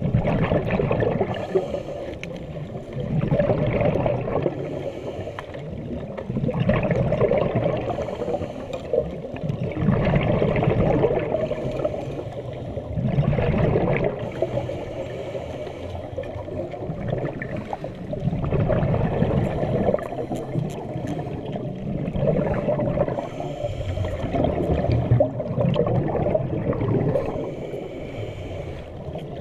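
Underwater scuba breathing: a diver's regulator exhalations bubbling past the camera, rising and fading in swells every few seconds.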